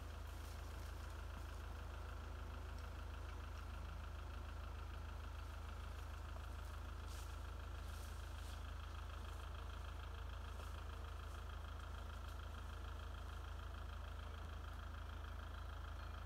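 An engine idling steadily, a low even hum with a faint steady whine above it and a few light ticks.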